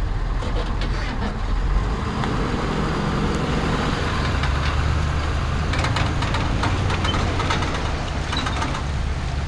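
Pickup truck engine running, a low steady rumble that gets heavier about four seconds in as the truck moves its boat trailer down the ramp into the water.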